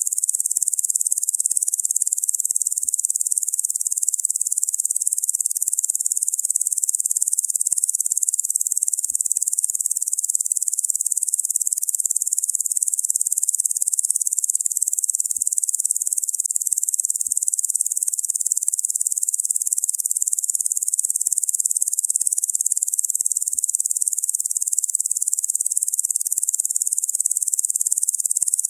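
Locusts buzzing: a steady, unbroken high-pitched insect drone that holds the same level throughout.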